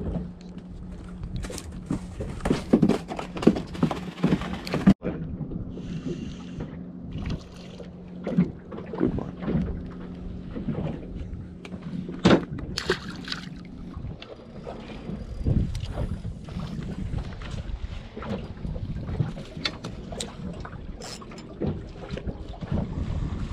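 Water slapping against the hull of a small boat, with wind on the microphone and scattered knocks and clicks from rod and gear being handled. A steady low hum runs through the first half and stops about halfway.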